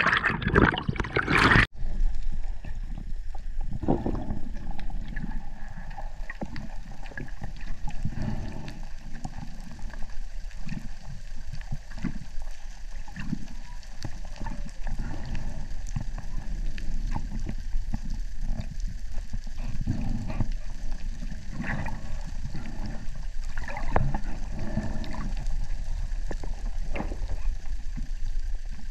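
Muffled water sound heard from underwater: an uneven low rushing and gurgling of moving water. A louder splashing rush in the first second or two cuts off suddenly.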